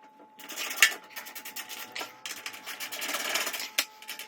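Screws being backed out of a clothes dryer's sheet-metal housing with a hand tool: rasping, rapid clicking and metal rubbing, with a sharp click about a second in and another near the end.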